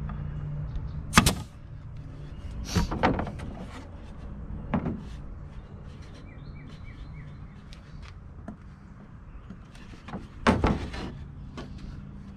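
A handful of separate sharp wooden knocks, the loudest about a second in and another pair near the end, as drawer parts are handled and knocked into place, over a steady low hum.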